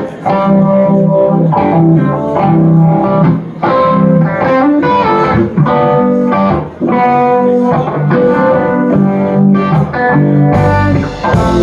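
Guitar playing a song's intro live, picked notes and chords ringing one after another. About ten and a half seconds in, the rest of the band, drums and bass, comes in.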